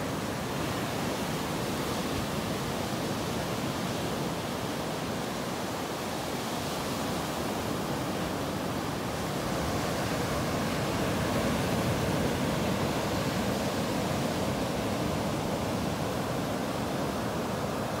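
Small sea waves breaking and washing up a sandy beach: a steady surf hiss that grows a little louder around the middle.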